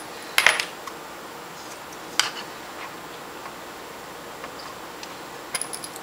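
Small metallic clicks and clinks of a screwdriver and tiny screws as a 2.5-inch laptop hard drive is screwed into its drive carrier. There is a sharp clink about half a second in, another at about two seconds, and a quick run of clicks near the end.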